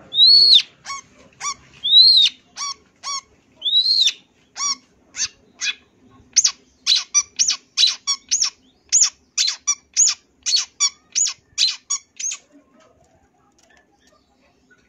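Long-tailed shrike (cendet) singing. It gives a few arched whistles that rise and fall, with short sharp notes between them, then a quick run of clipped, piercing notes at about two a second. The song stops about three-quarters of the way through.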